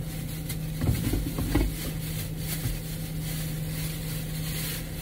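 Steady low hum inside a car's cabin, with two short low sounds about a second and a second and a half in.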